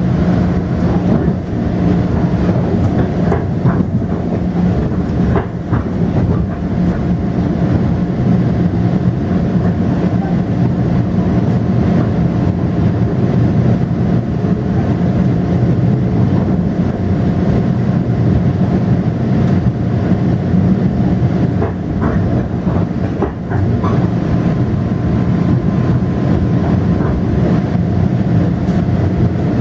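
Metro-North M7A electric multiple-unit train heard from inside the car while running: a steady electric hum over the rumble of the wheels on the rails, with occasional clicks of the wheels passing over rail joints.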